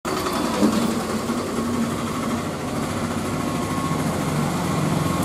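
Motor of a spinning potter's wheel running at a steady speed, a low constant hum.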